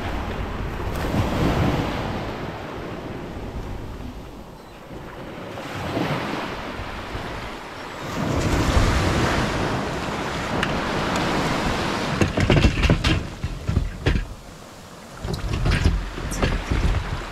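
Small waves breaking and washing up a sandy beach, with wind buffeting the microphone. In the last few seconds, sharp knocks and rattles of gear being handled in a plastic kayak's open hatch.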